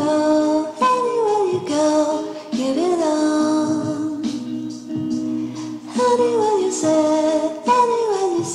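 Logo intro music: a melody of gliding, falling notes over steady held chords, repeating in short phrases.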